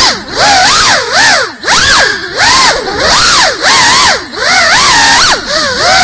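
FPV quadcopter's brushless motors and propellers whining loudly, heard from the camera on the drone itself. The pitch swoops up and down about once or twice a second as the throttle is punched and cut through the turns, with short dips in loudness between.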